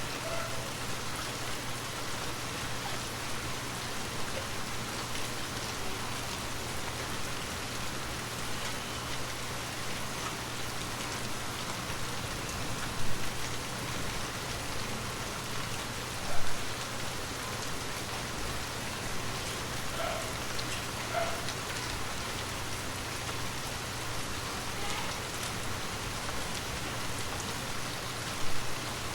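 Gentle rain falling steadily, a constant patter of drops, with three brief louder single taps standing out about halfway through and near the end.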